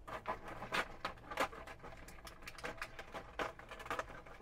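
Hands handling a plastic blister tray and small plastic figure parts: a quick, irregular run of plastic clicks and crinkles.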